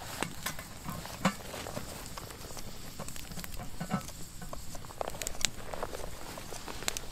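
Wood campfire crackling with irregular sharp pops, along with the rustling and handling of a steel cook pot as it is hung on a wooden pot-hanger over the fire.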